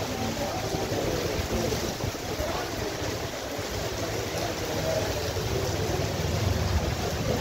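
Heavy rain pouring down onto a paved street and plaza: a steady rushing hiss, with a low rumble of wind on the microphone.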